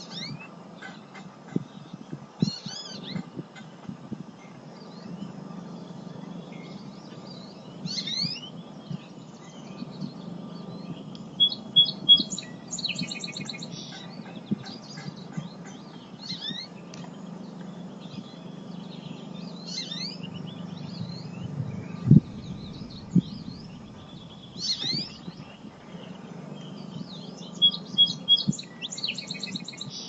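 Several small songbirds chirping and calling from many directions, with short sweeping notes and a few quick buzzy trills, over a steady low hum.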